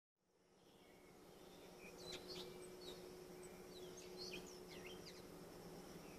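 Faint outdoor ambience fading in: small birds chirping in short, quick sweeping calls, over a steady high insect hum and a low steady drone.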